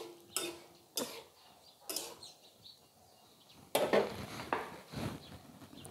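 Steel spatula scraping and knocking in a small steel karahi as cauliflower is stirred: several separate strokes in the first two seconds. About four seconds in, a short clatter as the spatula is laid down on the metal stove top.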